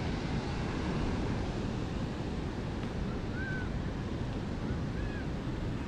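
Steady rush of wind buffeting the microphone, mixed with water pouring through a dam's spillway gates. Two faint short chirps sound about halfway through and near the end.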